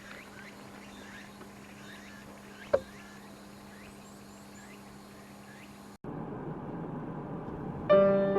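Outdoor night ambience: repeated short chirping calls over a steady low hum, with one sharp knock about three seconds in. After an abrupt cut, a louder hiss takes over and piano music begins near the end.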